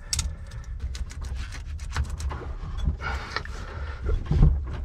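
Large rubber wet-exhaust hose being forced onto a bronze exhaust elbow, rubber rubbing and squeaking on the metal amid a string of clicks and knocks from handling.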